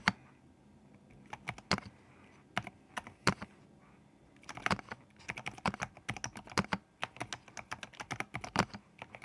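Typing on a vintage Apple desktop keyboard: a few scattered keystrokes, then a quicker run of typing from about halfway through.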